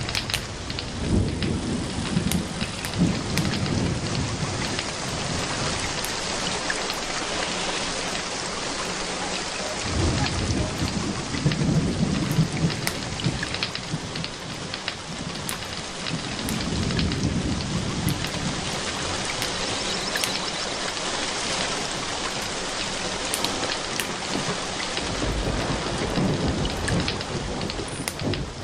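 Steady rain pouring and pattering, with low rolling thunder swelling up about four times.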